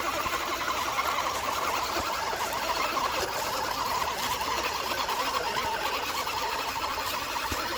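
Electric motor and gearbox of a 1/10-scale RC 6x6 truck running, a steady whir.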